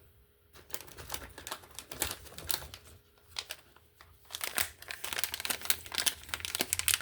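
Packaging crinkling with many quick small clicks and taps as items are handled by hand; it starts about half a second in, eases off briefly in the middle and grows busier over the last few seconds.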